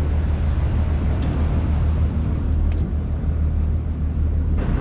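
A riverboat's engine running steadily under way, a constant low hum with water and wind noise over it.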